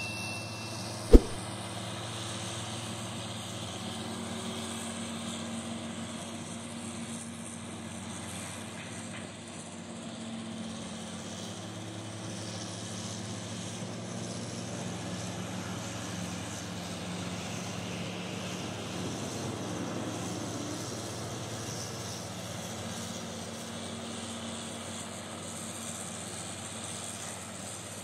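Steady diesel engine drone of a large hydraulic mining excavator and haul truck at work, swelling and easing slowly. A single sharp knock about a second in.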